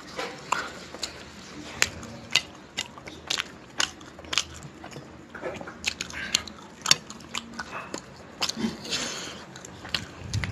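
Close-miked eating sounds: a man chewing chicken curry and naan with his mouth open, giving many sharp, irregular wet clicks and lip smacks, with fingers picking at a chicken leg in the curry.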